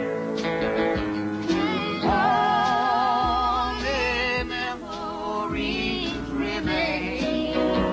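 Country ballad: a voice singing with vibrato over acoustic accompaniment, holding one long note in the middle.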